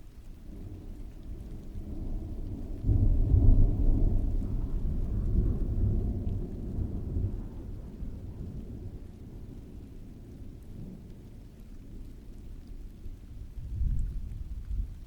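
Rolling thunder over steady rain. The rumble builds, breaks into its loudest, deepest part about three seconds in and rolls away over the next several seconds, with a second, shorter rumble near the end.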